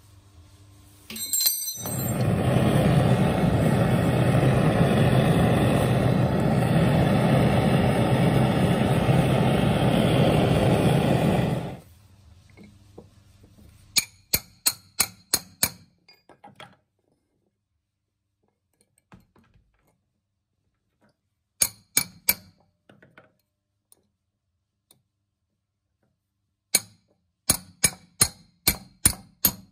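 Hammer blows on a steel rod bending a flattened silver-plated fork handle over a wooden bench block: sharp metallic clinks in three quick runs of several strikes each in the second half. Before them, a loud steady rushing noise lasting about ten seconds.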